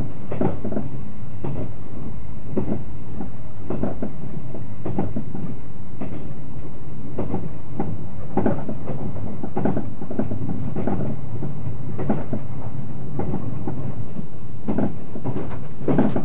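Inside a moving 381-series limited-express train car: a steady running rumble with the clickety-clack of wheels passing over rail joints, the clacks coming in pairs about once a second.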